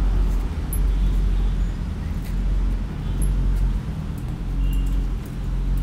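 A steady low mechanical hum, like an engine running close by, with a few faint clicks over it.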